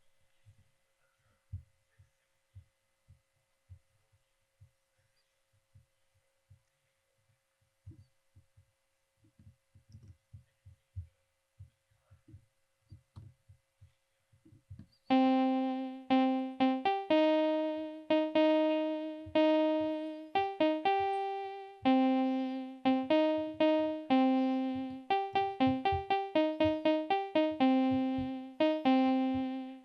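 Computer-generated keyboard melody from Sonic Pi: electric-piano-like synth notes that each strike and fade, in uneven note lengths, starting about halfway in. Before that there is near silence with a few faint low knocks.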